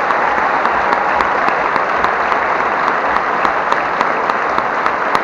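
Large crowd applauding steadily, many hands clapping at once.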